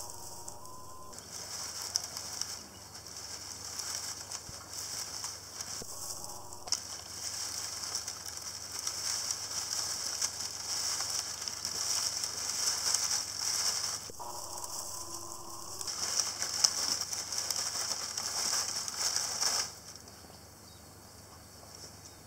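Dry dead palm fronds crackling and rustling as a vervet monkey climbs down through them: a dense, high crackle full of small sharp clicks that grows louder in the second half and stops abruptly near the end.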